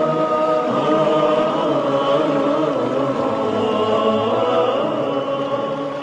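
A vocal chorus sings the closing bars of an Arabic nasheed in long, held, wordless notes that begin to fade out near the end.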